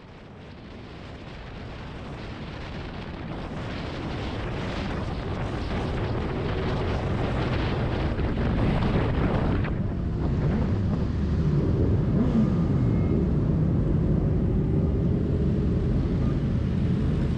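Wind rushing over the microphone of an electric motorbike at freeway speed, with road rumble, growing louder over the first few seconds. Motorcycle engines in the surrounding pack can be heard, with a few revs rising and falling about two thirds of the way through.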